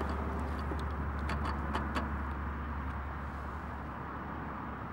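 A carp weigh sling and its metal clip clicking and rustling a few times in the first two seconds as the fish hangs on the scales, over a steady low rumble.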